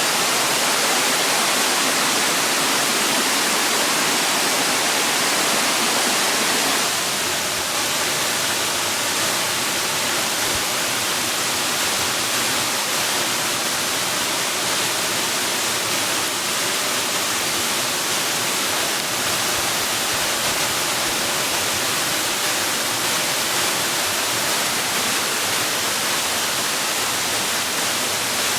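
Steady rushing water, like a waterfall, a dense even hiss across all pitches. About seven seconds in, the tone shifts slightly and it becomes a touch quieter.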